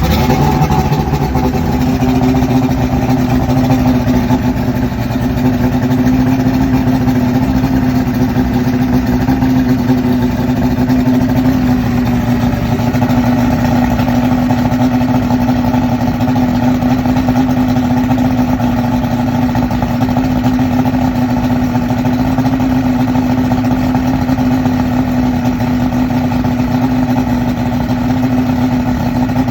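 Yamaha OX66 150 HP V6 two-stroke fuel-injected outboard idling steadily at low rpm. This is the rough low idle that the owner traced to the oil pump (oiler) arm adjustment.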